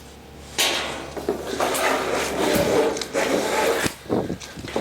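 Cardboard packaging rubbing and scraping as a heavy steel griddle top is worked out of its box: one long scrape of about three seconds starting half a second in, then a shorter one near the end.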